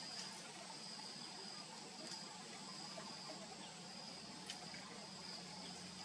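Faint, steady high-pitched insect trilling, with a few soft clicks.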